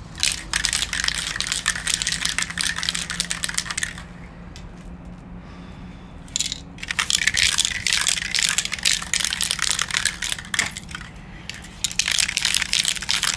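Crunching and crackling of gravel underfoot, coming in bursts with two short pauses.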